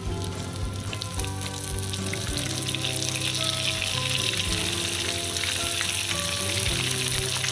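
Floured smelt sizzling and crackling as they are laid into hot oil in a skillet. The sizzle grows louder a couple of seconds in as more fish go into the pan.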